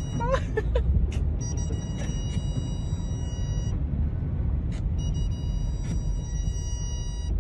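Loud, steady low rumble and rush of storm and floodwater noise picked up by a doorbell camera's microphone, with a few sharp clicks, under background music with held high tones.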